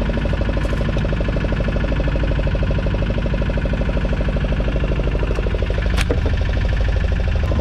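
Boat engine running steadily at a fast, even beat, with one sharp knock about six seconds in.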